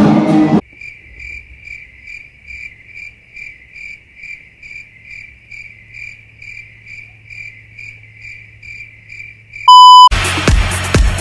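Music cuts off abruptly and gives way to a crickets-chirping sound effect: an even high chirp repeating about two or three times a second over a faint low hum. Near the end a short, very loud beep tone sounds, then house music with a steady kick drum comes in.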